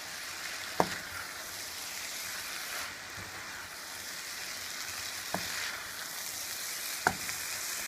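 Noodles and vegetables sizzling in a hot oiled pan as they are tossed and stirred with a wooden spatula, with three sharp knocks of the spatula against the pan.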